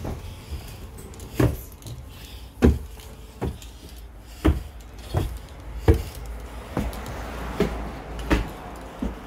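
Footsteps at a walking pace, about ten thuds spaced under a second apart, over the steady low rumble of a bus.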